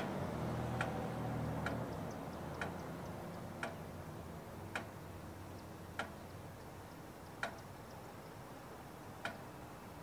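ACA Allertor 125 siren winding down: the last of its falling tone and a low hum fade out over the first few seconds. Sharp single ticks come more and more slowly, from about one a second to one every two seconds or more, as it coasts toward a stop.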